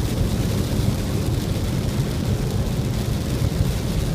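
Steady low rumble of a car driving on the highway, heard inside the cabin: engine and tyre noise with a faint hiss above it.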